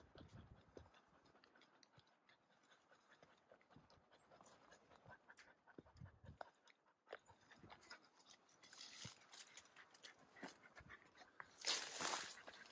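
Faint footsteps crunching on a dirt trail, with a dog panting. The panting comes in louder, breathy bursts about nine seconds in and again near the end.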